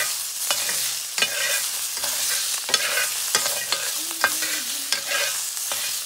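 Toad meat sizzling in hot oil as it is stir-fried in a black wok, a metal ladle scraping and knocking against the pan every half second or so.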